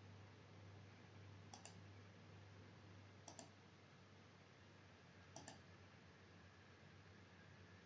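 Computer mouse button clicked three times, each click a quick pair of sharp ticks, over a faint steady electrical hum.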